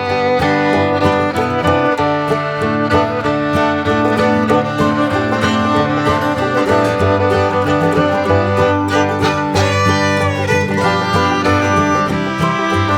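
Background music: upbeat acoustic string music with fiddle and plucked strings, running steadily.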